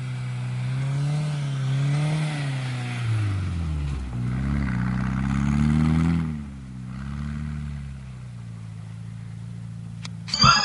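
Plymouth Laser AWD turbo's turbocharged four-cylinder engine revving up and down in waves as the car drifts on snow. About six seconds in the revs drop and it runs on lower and quieter. Music cuts in at the very end.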